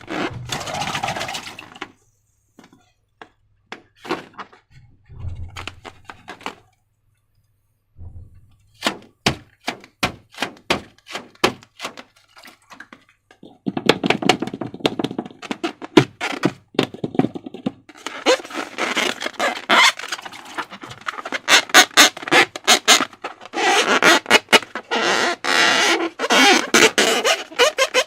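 Slime being squished and stretched by hand: scattered sticky clicks and pops, then dense wet crackling through the second half, with brief pauses early on.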